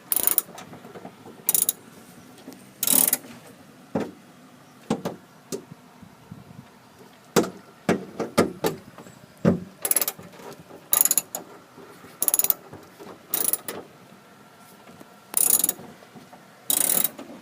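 Short bursts of ratcheting, about a dozen spread unevenly, with sharp single clicks between them, from hand work on the door handle assembly.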